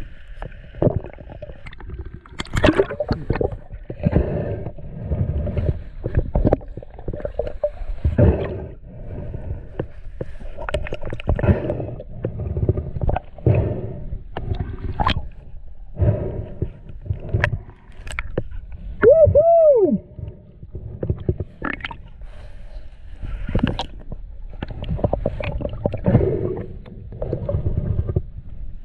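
Water sloshing and gurgling around an underwater camera, with irregular knocks and thuds against the housing. About two-thirds through, a short tone rises and falls once.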